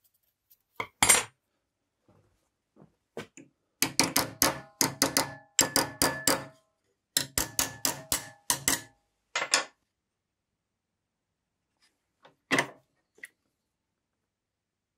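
Rapid light taps on a steel can-opener handle clamped in a bench vise, in two quick runs of strikes with a faint metallic ring. A single sharper clank comes about a second in and another near the end.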